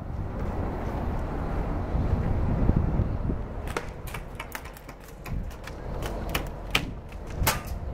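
Scattered sharp snaps of airsoft gunfire, about a dozen at irregular spacing, starting a little over three seconds in, over a low noisy background.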